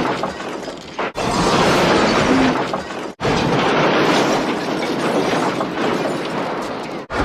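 Cartoon crash sound effects of barrels smashing and breaking: three long stretches of shattering and clattering, each cut off abruptly, about a second, three seconds and seven seconds in.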